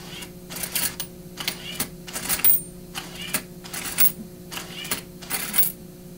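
Lego Mindstorms slot machine paying out coins: a run of short metallic clattering bursts, roughly two a second, as coins are pushed out of the dispenser, over a steady low hum.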